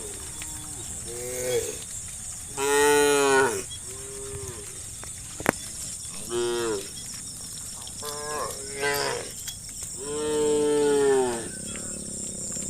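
Herd of cows mooing: about eight calls from several animals, short and long, overlapping at times, the loudest about three seconds in and a long drawn-out moo near the end. A single sharp click about halfway, over a steady high hiss.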